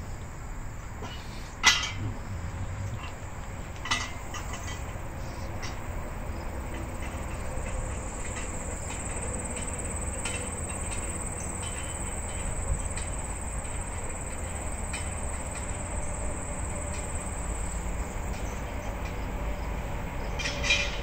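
Sharp metallic clanks from a steel carry frame as it is gripped and lifted, the loudest about two seconds in and another about four seconds in. A steady low rumble runs underneath, with a steady high insect buzz through the middle and another clank near the end.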